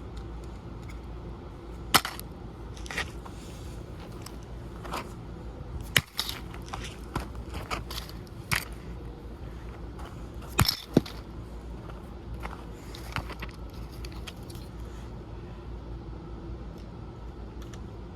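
A camcorder being smashed: irregular sharp knocks and cracks of its plastic body breaking, a dozen or so spread out, with the hardest blows about two seconds in, around six seconds and around eleven seconds.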